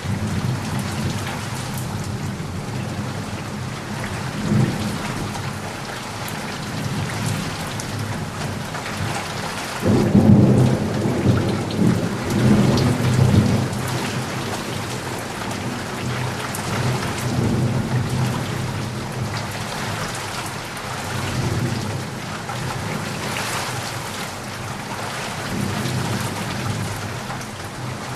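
Steady rain falling, with thunder rumbling low underneath. The loudest rumble comes in suddenly about ten seconds in and rolls on for several seconds before settling back.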